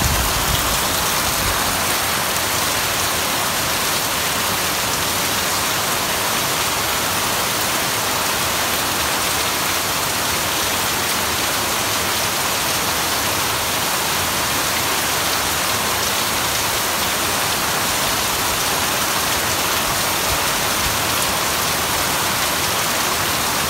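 Heavy rain pouring down steadily, a dense even hiss of falling drops. A low rumble dies away in the first second.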